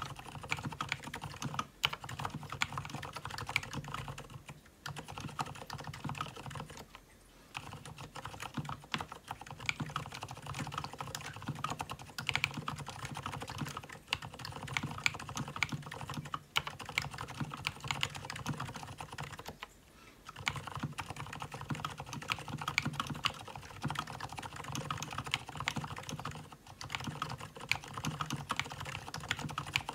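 Typing on an Mstone Groove T87A tenkeyless mechanical keyboard fitted with tuned Gateron silent brown switches. Keys are pressed in a fast, steady stream of soft clicks, with a few brief pauses.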